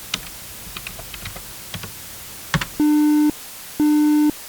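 Typing on a computer keyboard, a sharper keystroke at about two and a half seconds as the command is entered, then the terminal answering with a low, buzzy electronic beep, twice, each about half a second long and a second apart.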